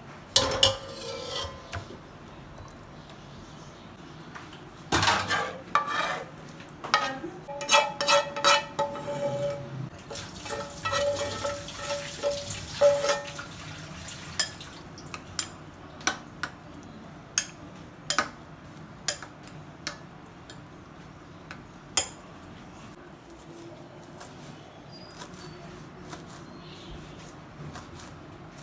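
A steel spoon clinking and scraping against a ceramic bowl while mixing, the bowl ringing with each strike, after a brief clatter of a metal spatula in a pan near the start. This is followed by a run of single sharp taps about a second apart.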